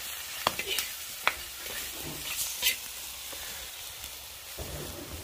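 Chopped chicken pieces sizzling as they are stir-fried in a large black wok. A metal ladle turns them, with a few sharp clicks and scrapes against the pan over a steady sizzle.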